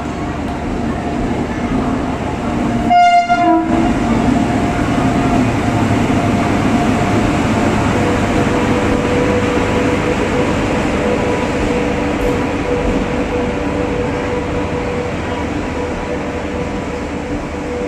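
Express passenger train approaching with a steady rumble of its wheels and coaches, and a short blast of the locomotive's horn about three seconds in.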